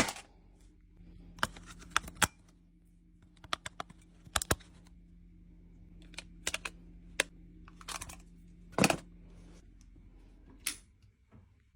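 Scattered sharp plastic clicks and taps, singly and in quick clusters, from a new programmable room thermostat being handled and fitted onto its wall plate. A faint low hum underneath stops a couple of seconds before the end.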